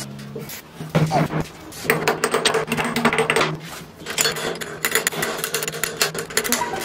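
Thin steel transformer laminations clicking and clinking in quick, irregular strokes as a laminated core is stacked and bound, over a steady low tone.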